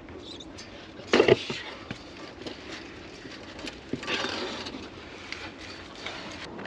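A hiker's scuffs and knocks while climbing a narrow rocky trail, with a loud bump about a second in and a longer rustle around four seconds in.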